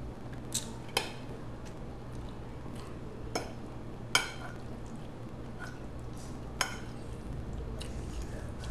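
Metal fork clinking against a plate of spaghetti as it twirls the noodles: several sharp clinks a second or two apart, over a steady low hum.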